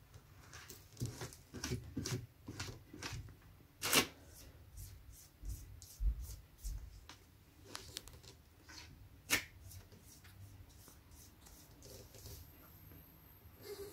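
Cat scratching and digging in granular litter in a plastic litter box, an irregular run of short scratchy rustles, with two louder scrapes about four seconds in and about nine seconds in.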